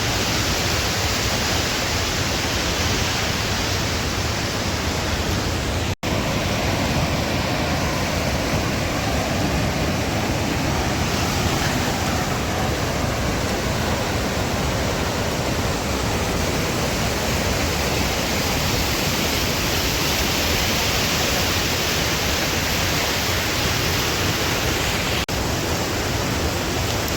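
Waterfall in full flow: a loud, steady rush of falling water, cut off for an instant twice.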